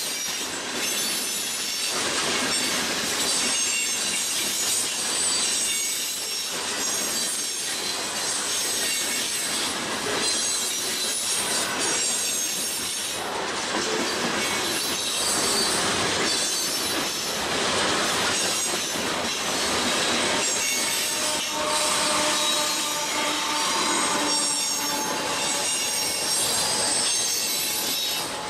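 A long freight train of tank cars and autorack cars rolls past close by: a steady rush of steel wheels on rail, irregular clacks as the wheel sets cross rail joints, and thin, high wheel squeal. For a few seconds past the middle a louder squeal tone rings out over the rush.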